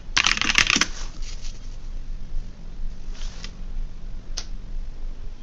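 Computer keyboard typing: a quick run of keystrokes in the first second, then a couple of single key presses, over a faint steady hum.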